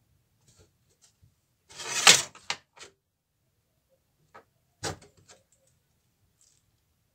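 Hands handling flexible model railway track on a wooden baseboard: a short burst of rustling, scraping noise about two seconds in, a few light clicks, and one sharper knock about five seconds in.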